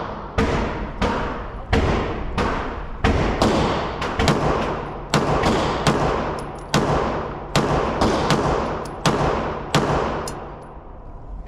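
A steady string of gunshots, about fifteen rounds fired at a little under two a second, each shot ringing out in an echoing range. The firing stops about ten seconds in.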